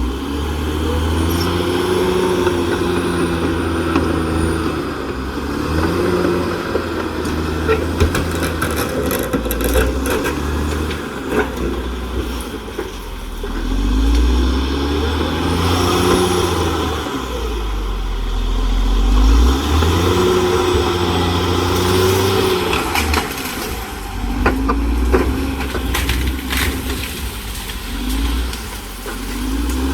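Caterpillar D6R XL bulldozer's diesel engine working under load, its pitch rising and falling every few seconds as the load comes and goes, with scattered sharp knocks.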